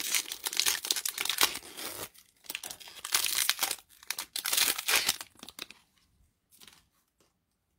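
Magic: The Gathering booster pack's foil wrapper crinkling and tearing as it is ripped open by hand, in several bursts over the first five seconds or so. The sound then dies to a few faint rustles as the cards are pulled out.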